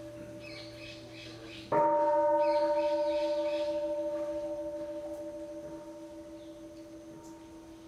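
A large Buddhist bowl bell struck once, about two seconds in, then ringing on in a long slow fade with a slow wavering pulse. The ring of an earlier strike is still dying away before it, and faint bird chirps come from the background.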